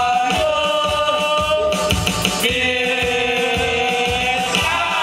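A group of men singing a song together into microphones over a backing track with a steady drum beat. They hold long drawn-out notes, moving to a new one about halfway through.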